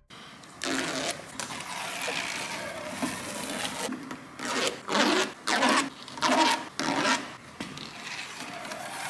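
Red plastic backing liners being peeled off strips of double-sided adhesive tape on a roof spoiler: a run of rustling, scraping pulls, with several louder ones in quick succession about halfway through.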